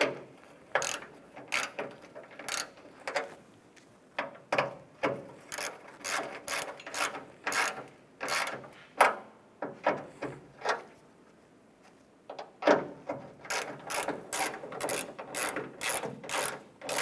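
Hand ratchet with a 10 mm socket running nuts down onto studs: the ratchet clicks in short repeated strokes, roughly two a second. They pause about eleven seconds in, then resume a little faster.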